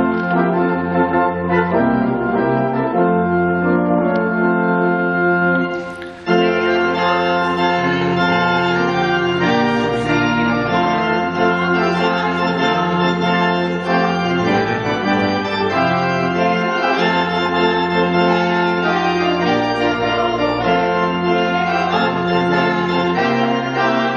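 Organ playing slow music in held chords over sustained bass notes, with a brief break in the sound about six seconds in.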